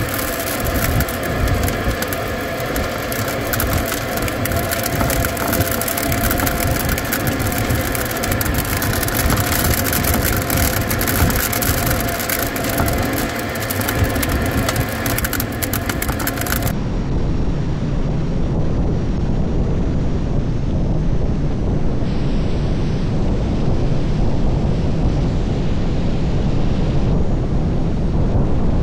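Air rushing over a glider's canopy at speed, with a dense crackle of snow or ice grains striking the canopy and a few steady whistling tones. About two-thirds of the way through it changes abruptly to a low wind rush buffeting a camera mounted outside the glider.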